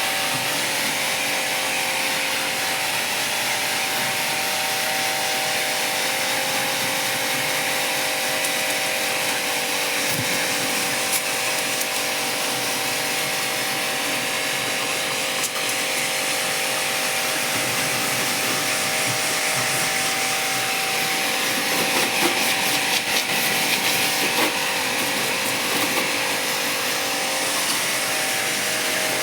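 Steady machine noise: a motor's hum with an even hissing rush over it, unchanged throughout, with a few small clicks about three quarters of the way through.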